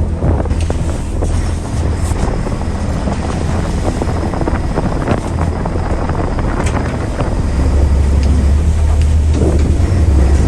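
Fishing boat's engine running steadily at sea, with wind buffeting the microphone; the engine's low hum grows louder about three-quarters of the way through.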